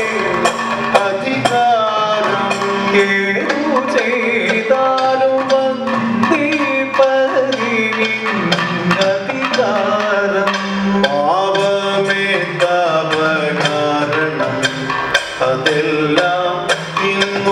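Kathakali music: male singers chanting a slow, winding vocal line, with a steady pulse of gong and cymbal strokes and maddalam drum beats keeping time.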